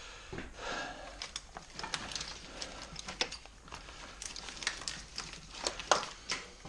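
A gloved hand feeling around a vehicle's wiring harness and engine parts, making rustling and scattered light clicks and taps, with a couple of sharper ticks near the end.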